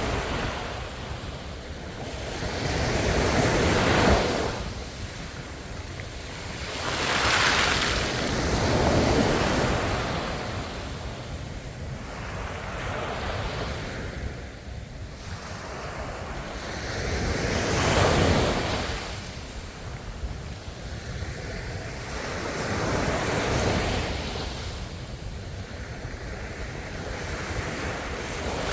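Ocean waves breaking on a shore, a steady surf wash that swells every few seconds as each wave breaks and then draws back, with some wind.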